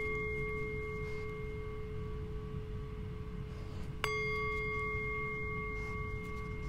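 The Truth Ohm, a small brass singing bowl held on an open palm, ringing on from an earlier strike and struck again with a wooden striker about four seconds in. Each strike sets off one steady low note with several higher overtones ringing together and fading slowly.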